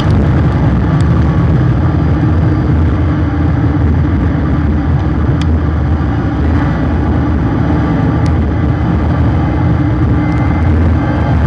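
Car driving at speed on a paved oval track, heard through a bumper-mounted camera: a steady, loud, low rumble of engine and road noise.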